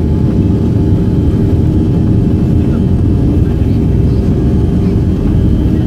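Jet airliner's engines running, heard from inside the cabin as the plane moves along the runway for takeoff: a loud, steady low rumble with a steady hum.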